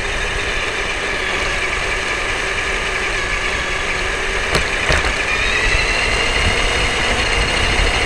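Tamiya Wild Willy II RC car's electric motor and gears whining, with the rumble of its tyres on asphalt, heard through a camera mounted on the car. A couple of knocks come about four and a half seconds in, and then the whine rises in pitch.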